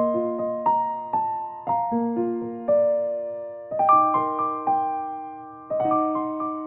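Gentle background piano music: soft arpeggiated chords, a new chord struck about every two seconds with notes ringing on.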